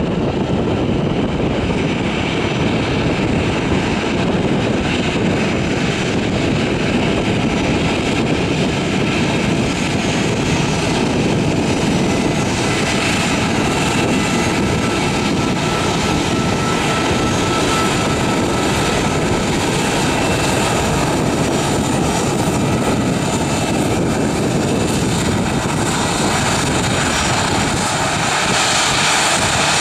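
Airbus A319 airliner's twin turbofan jet engines running at taxi power as the aircraft taxis past: a steady rushing noise with a faint steady whine.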